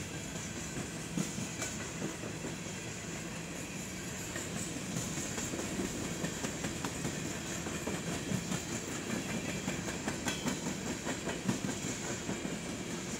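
Empty coal gondolas of a CSX freight train rolling past. The wheels click over the rail joints above a steady rumble and hiss, and the clicks come thicker and sharper from about four seconds in.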